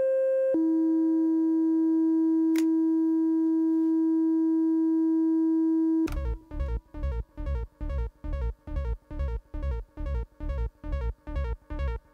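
Yamaha CS-30 monophonic analog synthesizer holding one steady tone, which steps down in pitch about half a second in, with a short click midway. About six seconds in it switches to a fast repeating bass-heavy note pattern, about two to three notes a second.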